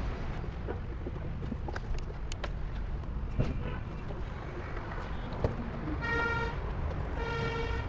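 Steady low traffic rumble with scattered light clicks, then a vehicle horn honks twice near the end, two short steady toots about a second apart.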